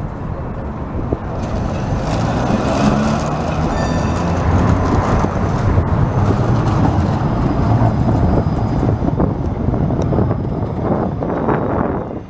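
Heritage tram with a trailer car rolling past on street track: a loud, steady rumble of steel wheels on rails that swells about a second and a half in. A passing car's tyre noise is mixed in.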